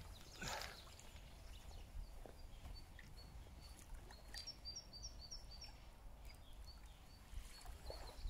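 Quiet wind rumble with a small bird chirping now and then, including a quick twittering run of high notes about halfway through. There is a brief rustle about half a second in.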